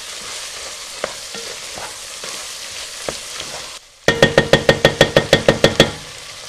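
Ground pork and beef with diced vegetables and tomato paste sizzling in a pot as a wooden spatula stirs it, with a few scrapes. About four seconds in, the sizzle breaks off and a fast run of loud ringing knocks follows, about eight a second for two seconds, before the sizzle returns more quietly.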